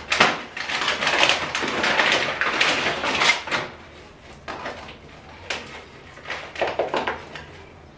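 Paper bag and plastic food wrapping rustling and crinkling as a takeaway packet is pulled out and handled. The rustling is dense for the first three and a half seconds, then comes as a few short, lighter rustles.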